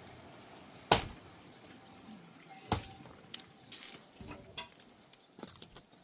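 Two sharp knocks, the first and loudest about a second in and the second nearly two seconds later, followed by several lighter taps and clicks.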